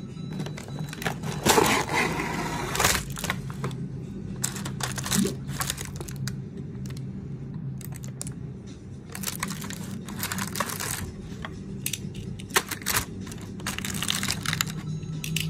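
Cardboard box and clear plastic tray of die-cast toy cars being handled, rustling and crinkling in several bursts, with small clicks and clinks of the metal cars against the plastic.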